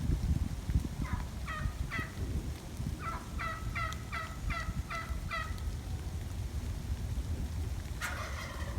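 Wild turkeys calling: two runs of short, evenly spaced yelp-like notes, then a longer, louder rattling gobble near the end, over a steady low rumble.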